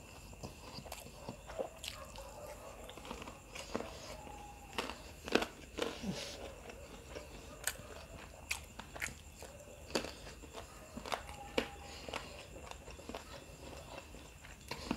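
Close-miked chewing of a mouthful of rice and devilled chicken, with irregular wet mouth smacks and clicks.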